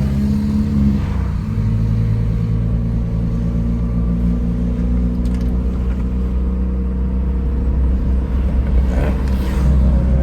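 Car engine running while driving, over a low road rumble; its pitch drops about a second in, as at a gear change, then holds fairly steady.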